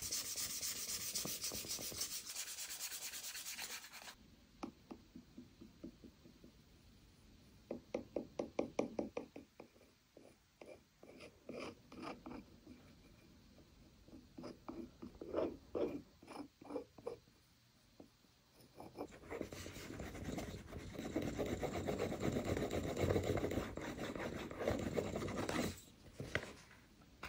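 Hand rubbing and rasping strokes in leatherwork: steady rubbing for about four seconds, then bursts of quick short back-and-forth strokes, then a longer stretch of steady rubbing that stops shortly before the end.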